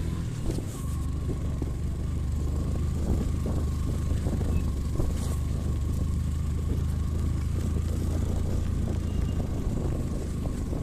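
Motorcycle engine running with a steady low drone while riding a rough dirt track, with wind on the microphone and a few knocks from bumps.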